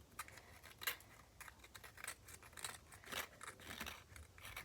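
Faint irregular clicks and crackles of small objects being handled while making slime.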